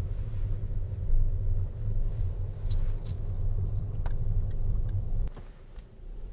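Car cabin road noise while driving: a steady low rumble of engine and tyres, with a few light clicks and rattles. It drops away sharply about five seconds in.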